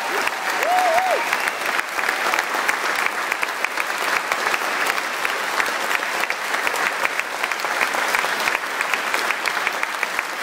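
A packed audience applauding and cheering, a dense, steady clatter of clapping, with a short whoop from one voice about a second in.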